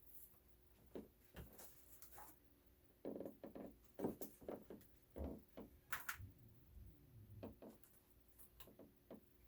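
Faint, scattered clicks and light knocks of objects being handled, busiest from about three to six and a half seconds in.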